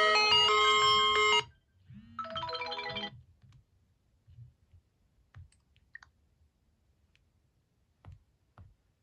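Smartphone ringtone melody over a repeating bass figure, cut off abruptly about a second and a half in. A second short electronic tune sounds for about a second just after, then only a few faint clicks.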